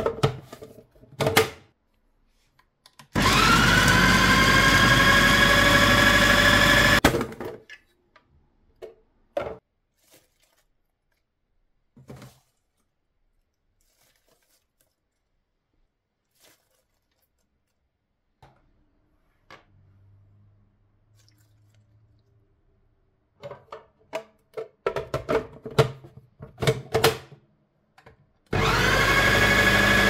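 Electric food processor motor running for about four seconds, its whine rising as the blade spins up and chops nuts and grated cheese. Clicks and clatter follow as the plastic bowl and lid are handled, and the motor starts again near the end.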